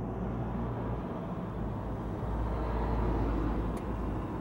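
Low steady rumble of a car's engine and road noise heard from inside the car's cabin. The rumble swells a little about three seconds in, and there is a faint click shortly before the end.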